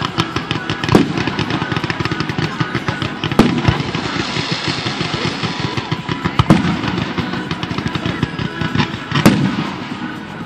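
Fireworks display: a dense, continuous crackle of many small bursts, with four louder booms spaced roughly three seconds apart.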